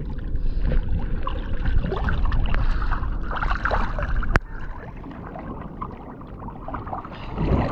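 Water sloshing and splashing as a kingfish is held alongside a kayak and worked through the water to revive it. A single sharp click comes about four seconds in, after which the splashing is quieter.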